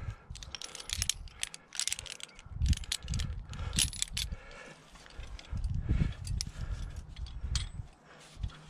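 Aluminium carabiners clicking and clinking against steel bolt hangers and each other as a climber clips and sorts gear at a two-bolt anchor, many sharp clicks in the first half. Dull low rumbles of handling come and go between them.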